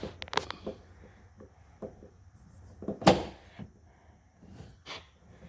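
Plastic clicks and knocks of a car's outside door handle assembly being pressed and snapped into the door, with one loud snap about three seconds in and a few lighter clicks around it.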